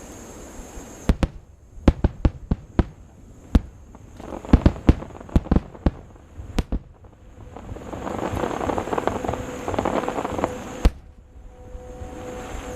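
Aerial fireworks display: a quick string of sharp bangs from shells bursting, then about three seconds of dense crackling, and one last bang before it dies down.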